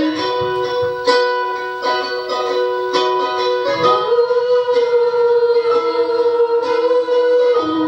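Ukulele strummed in a steady rhythm under a sung melody, with the singer holding one long note for several seconds near the middle.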